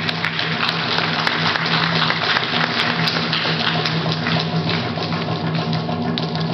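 Japanese taiko drums (barrel-bodied nagado-daiko and rope-tensioned drums) beaten with sticks by several drummers in a fast, continuous roll of strikes. The recording is loud and rough-sounding, overloaded by the drums.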